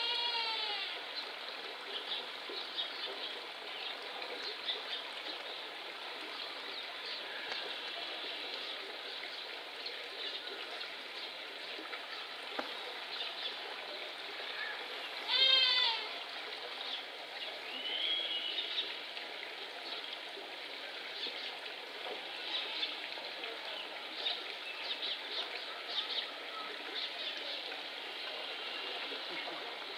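Himalayan tahr giving two short goat-like bleats that fall in pitch, one right at the start and a louder one about halfway through. Faint bird chirps and a steady background hiss fill the time between.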